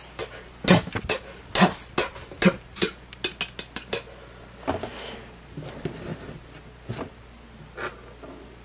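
Cardboard toy boxes being handled and set down on a table: a string of knocks and taps with some rustling, busiest in the first four seconds and sparser after.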